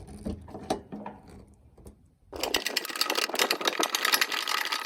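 Ratchet on an extension spinning out a 10 mm headlight-housing bolt: a few faint knocks, then from about two seconds in a loud, fast, steady clicking that runs on.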